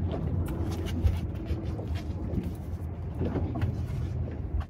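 Steady low rumble with scattered knocks and clatters from someone moving about and handling things on a fishing boat's deck.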